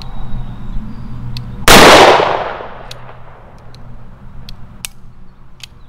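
One shot from a Smith & Wesson Governor revolver firing a 2 1/2-inch Winchester Defender .410 shell, a couple of seconds in, ringing out for about a second. A few faint sharp clicks follow.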